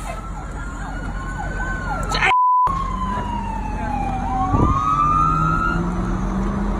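Fire truck siren wailing, its pitch sliding slowly up, down and back up, with a large engine running underneath in the second half. A short steady censor bleep cuts out all other sound a little over two seconds in.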